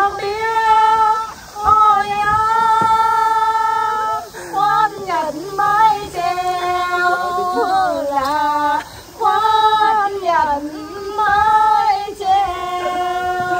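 A woman singing a Vietnamese song unaccompanied, in phrases of long held notes with a wavering pitch and short breaks between them.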